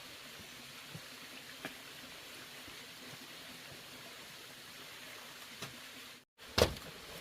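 Steady background hiss with a few faint clicks, then, after a momentary dropout, one sharp loud knock near the end.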